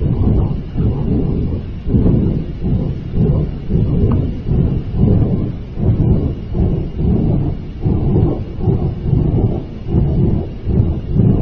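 A loud, low rumbling roar that surges and dips about one and a half times a second.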